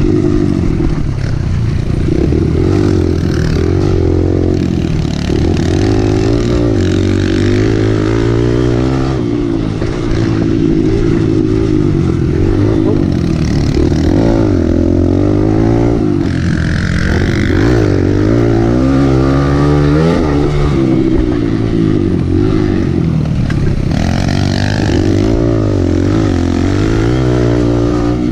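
Kawasaki KLX pit bike's four-stroke single-cylinder engine on a trail ride, revving up and down again and again as the rider throttles on and off through gear changes and turns.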